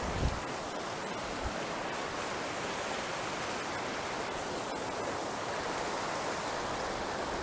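Marsyangdi River rapids: fast water rushing over and around boulders as a steady, even roar. There are two brief low thumps in the first second and a half.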